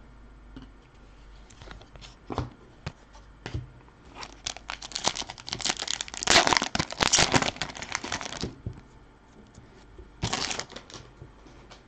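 A foil trading-card pack being torn open by hand. Scattered light rustles and clicks come first, then about four seconds of dense crinkling and tearing of the wrapper, and a short burst of crinkling a little before the end.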